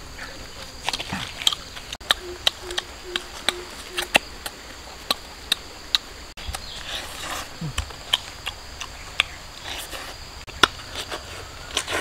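Puppies chewing and crunching cooked duck bones: crisp, irregular clicks and cracks, several a second.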